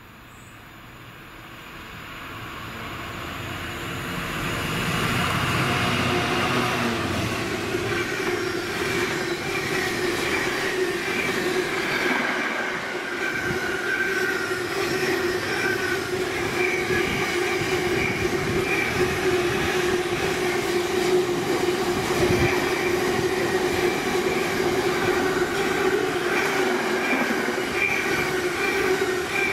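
A train approaching, growing louder over the first five seconds, then running past steadily with wheel squeal from the rails.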